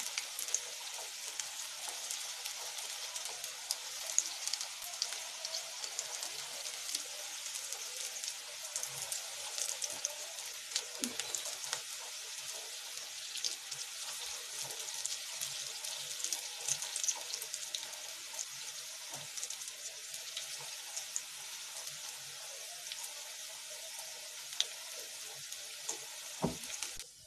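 Hot oil sizzling and crackling steadily around urad dal and green pea bondas deep-frying in a kadhai. The sound stops abruptly near the end.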